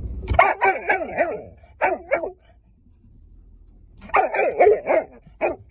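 A dog barking in two quick runs of short barks, the second run starting about four seconds in.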